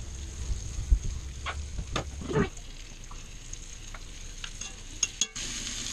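Floured venison shank discs sizzling as they sear in bacon fat in a Dutch oven, with sharp clicks and scrapes of tongs as the pieces are turned and lifted out.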